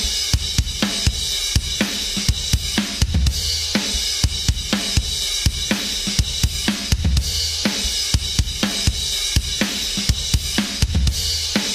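Drum kit loop playing a steady beat of kick, snare, hi-hat and cymbals, played back through a Reason 6 mixer channel with its compressor switched on and its gate off.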